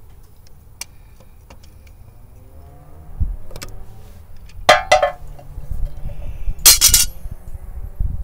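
Pliers gripping and prying at the metal cap on a Ford F100's front wheel hub: scattered light clicks, a dull thump about three seconds in, metal clinks around five seconds and a louder clatter near seven seconds.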